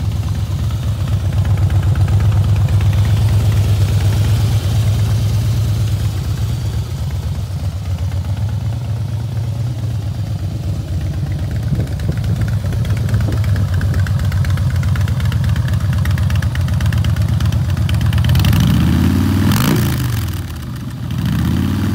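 2008 Harley-Davidson FXSTB Night Train's air-cooled Twin Cam 96B V-twin idling steadily, then revved twice near the end, the pitch rising and falling each time.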